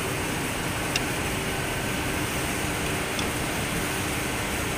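Steady hum and hiss of factory-hall machinery and ventilation, with two short clicks, about one second and three seconds in.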